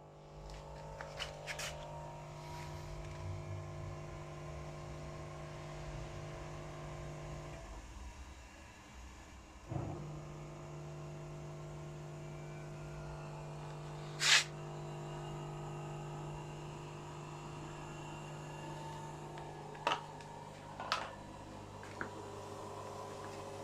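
Samsung Diamond washing machine on a test run after its drum bearings and drum spider were replaced: the drum motor runs with a steady hum, stops for about two seconds a third of the way in, then starts again with a click. A few sharp clicks come over it, the loudest a little past the middle.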